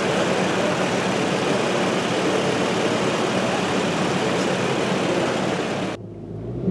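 Toyota 4Runner engine idling steadily, heard close up with a loud, even running noise, while it misfires on one cylinder from a worn original spark plug. The sound cuts off abruptly near the end, leaving a quieter low hum.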